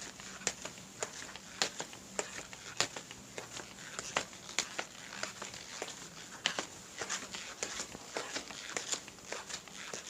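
Footsteps walking at a steady pace, about two steps a second, each step a short sharp click with lighter scuffs between.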